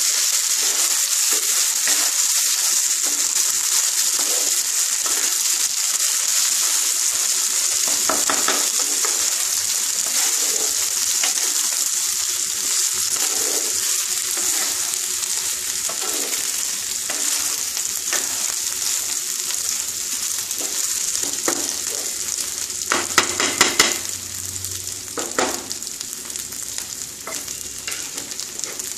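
Gobindobhog rice sizzling as it is fried slowly in ghee and oil over low heat in a non-stick pan, stirred with a wooden spatula that scrapes across the pan. A cluster of louder scrapes comes about 23 seconds in, after which the sizzle is a little quieter.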